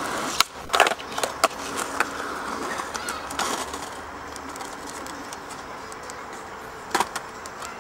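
Skateboard wheels rolling on concrete, with a run of sharp clacks of the board hitting the ground in the first two seconds and another clack about seven seconds in; the rolling fades as the board moves away.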